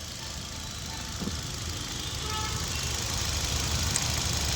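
Hyundai i20's four-cylinder petrol engine idling with one injector connector unplugged, missing and running uneven as that cylinder drops out.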